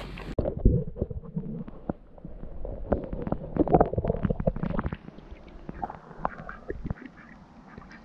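Mallard quacking: a run of irregular quacks over several seconds, busiest around the middle.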